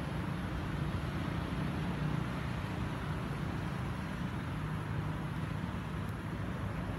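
Steady low rumbling background noise, even in level, with no distinct calls or knocks standing out.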